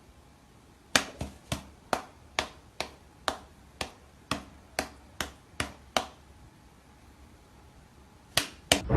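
A run of sharp clicks or taps, about two a second for roughly five seconds, then two more after a pause near the end.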